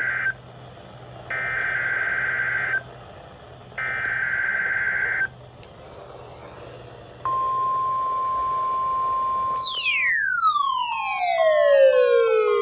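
NOAA Weather Radio EAS Required Weekly Test signal: the tail of one SAME header data burst and two more, each about a second and a half of harsh digital warbling with short gaps between. About seven seconds in comes a steady single alert tone of about three seconds, the weather radio's 1050 Hz tone. Near its end a loud siren-like wail with many overtones sweeps down in pitch and keeps falling to the end.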